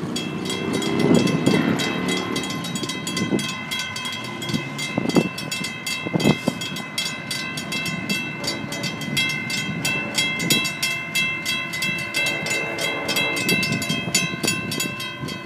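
Railroad grade-crossing warning bell ringing in rapid, evenly repeated strikes, warning of an approaching train while the crossing gates lower.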